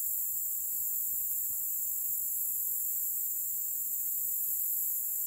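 Steady high-pitched chorus of insects, unbroken throughout.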